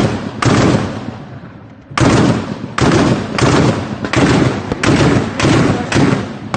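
Rifle gunfire fired shot by shot, each shot ringing out with an echoing tail. One shot comes first, then after a pause of about a second and a half a steady string of shots follows, about every two-thirds of a second.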